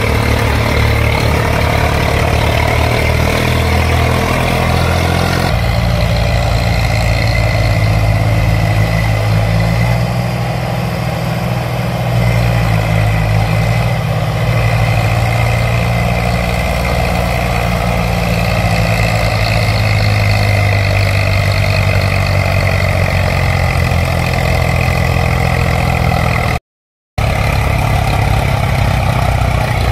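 Steady tractor engine running as a toy RC tractor spins its rear wheel in mud. The pitch shifts about five seconds in, and the sound cuts out for a moment near the end.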